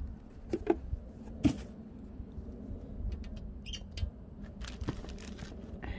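Handling noise from a handbag being lifted and moved among its packaging: a few scattered light knocks and rustles over a steady low rumble.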